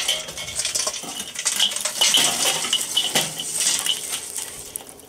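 Hot hardwood lump charcoal poured from a metal chimney starter into a Weber kettle: a dense run of clinking and tumbling pieces, busiest about two to three and a half seconds in, then thinning out.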